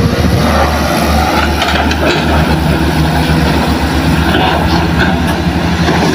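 Heavy diesel engines of hydraulic excavators running steadily under load, a low pulsing rumble, with a few light knocks.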